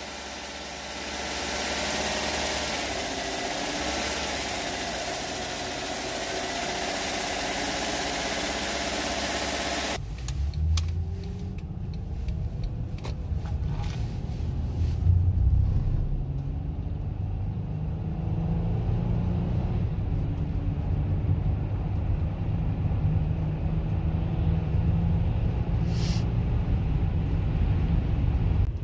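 Honda J-series 3.5 V6 of an Odyssey minivan running under the open hood, its sound rising about a second in; about ten seconds in it changes to the low engine and road drone heard inside the cabin while cruising. There is no gurgling from the freshly bled coolant system.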